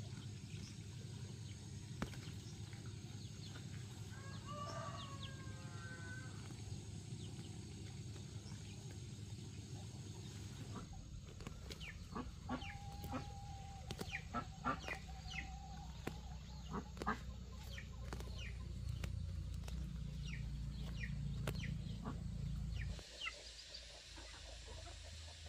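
Chickens clucking in short sharp calls, busiest in the middle, with one longer pitched call about four seconds in, over a steady low rumble that cuts off near the end.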